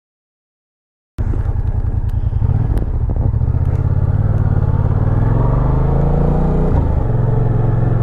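Yamaha FZ-07's parallel-twin engine pulling under way, cutting in after about a second of silence. Its pitch climbs steadily as the bike accelerates, drops sharply at a gear change near the end, then holds steady.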